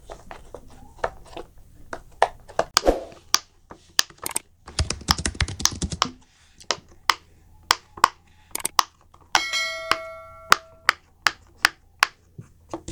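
Silicone pop-it fidget toy bubbles pressed one after another, a string of sharp pops with a fast run of pops a little under halfway through. A brief steady tone sounds about ten seconds in.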